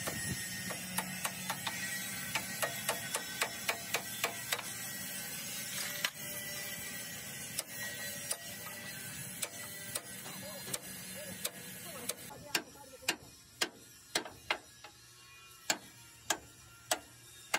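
A run of sharp, irregular taps or clicks, about two to three a second, over a steady hiss; the hiss drops away about twelve seconds in while the taps carry on.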